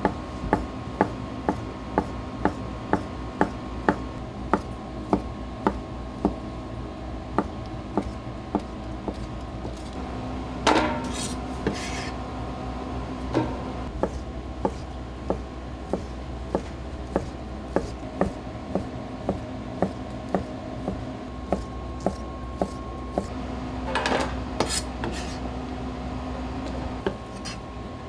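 Knife chopping on a cutting board at a steady pace of about two strokes a second, over a steady kitchen hum. Twice, about 11 and 24 seconds in, a louder ringing clatter of metal dishes.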